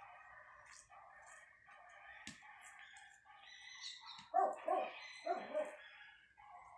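Animal calls in the background: a continuous chatter of calls, with three louder calls close together a little past the middle.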